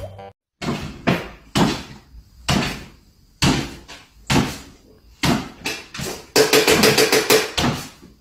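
A small dog jumping up and down on a wooden floor, its landings thumping about once a second, with a quicker run of knocks near the end.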